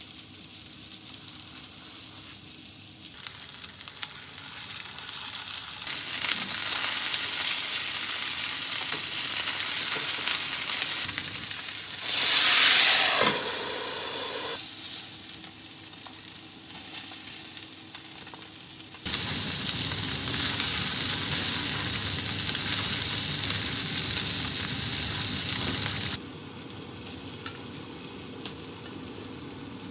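Meat patties sizzling in a hot iron skillet. About twelve seconds in, a loud hiss flares up as a splash of cooking sake hits the hot pan, then dies down; the sizzle grows louder again later and drops back near the end.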